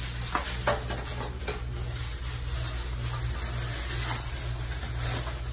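A steady low hum with a few light clicks and rustles scattered through it.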